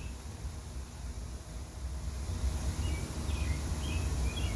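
Outdoor background: a steady low rumble with a few faint bird chirps in the second half.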